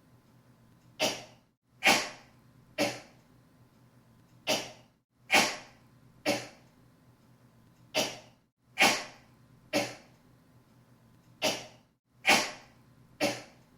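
A woman sneezing in short, sharp bursts, about twelve in all, coming in sets of three roughly a second apart.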